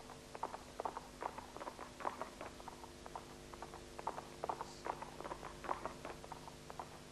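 Galloping hoofbeats in a chase: a quick, uneven clip-clop of knocks, a few a second, over a faint steady hum.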